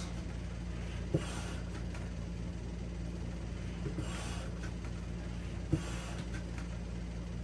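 Hand pump inflating an inflatable paddle board, slow strokes a couple of seconds apart, each a short click followed by a rush of air, over a steady low hum.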